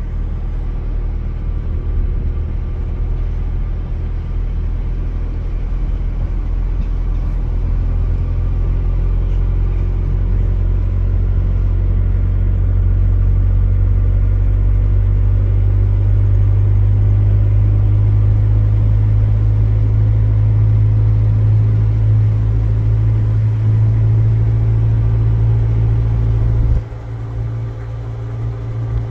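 Steady low rumble of a vehicle's engine and road noise while driving, dropping off abruptly near the end.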